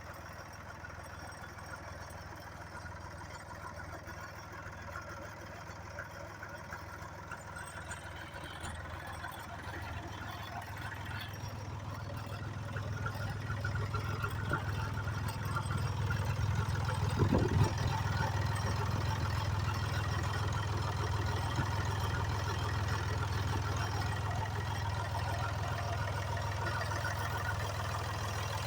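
Landini Blizzard 50's three-cylinder Perkins diesel engine running steadily at idle, growing louder about halfway through, with one short thump about two-thirds of the way in.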